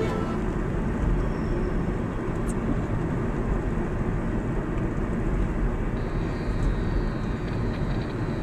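Car driving slowly along a winding road, with steady engine and tyre noise heard from inside the cabin.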